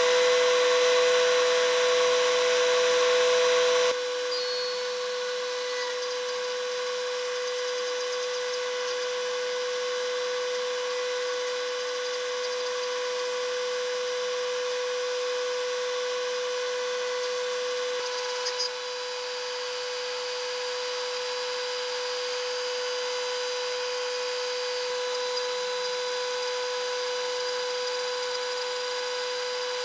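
Desktop CNC router spindle running at steady speed with a steady whine as a 1/8 inch metal-cutting bit mills a shallow pocket into 3 mm aluminium bar. The sound steps slightly quieter about four seconds in.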